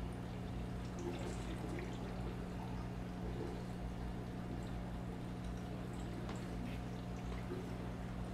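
Touch tank's water circulation running: water pouring and trickling into the tank over a steady low hum, with a few faint clicks.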